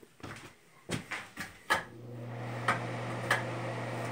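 Footsteps and light knocks of someone walking through a small room, then a steady low hum starts about two seconds in and stops near the end.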